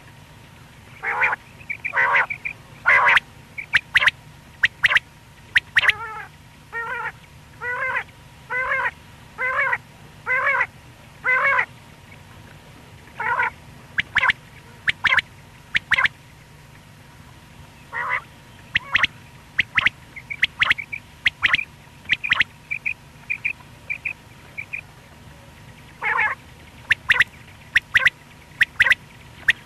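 Common quail calling: sharp, clicking notes scattered throughout, a run of pitched calls repeated about once a second for several seconds, and a quick series of short high chirps past the middle.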